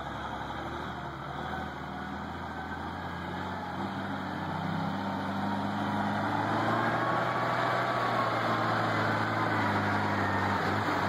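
Diesel engine of an old Mercedes-Benz logging truck, loaded with logs, running steadily at low speed and growing louder as the truck comes closer.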